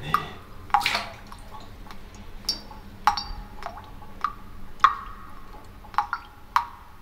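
Water dripping with small clinks: about ten separate, irregularly spaced drops, each a sharp tick with a short ringing tone.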